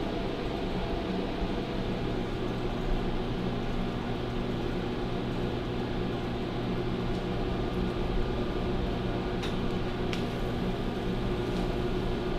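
Steady low hum with hiss and several held tones, like a fan or machine drone. A few faint clicks come near the end.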